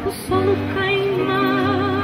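A woman singing into a microphone, accompanied by an electronic keyboard. After a short break near the start, she holds one long note with vibrato.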